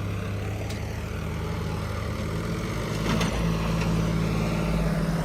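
New Holland tractor's diesel engine running steadily under heavy load as it pulls a fully loaded trolley by tow chain, its note firming up and growing a little louder about three seconds in.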